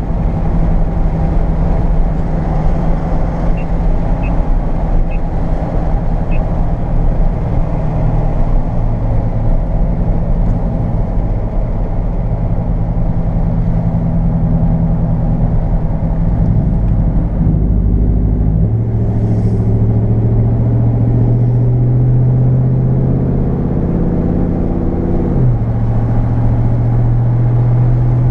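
Ram 1500 pickup truck driving: steady engine drone with road noise, the engine note changing pitch about two-thirds of the way through and again near the end.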